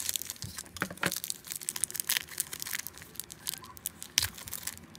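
Small shiny plastic blind-bag wrapper being crinkled and torn open by hand: a rapid, irregular run of crackles and rips.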